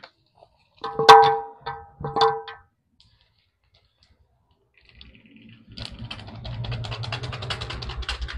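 Rapid crackling rustle of a plastic spice packet as meat masala powder is shaken out of it onto raw mutton. It starts a little over halfway through and runs on as dense fast clicking.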